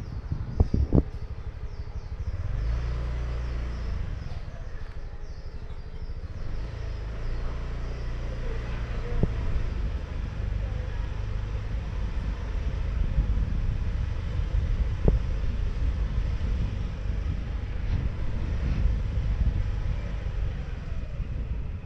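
Street traffic going by on a city street: a steady low rumble of passing vehicles, with a few sharp knocks.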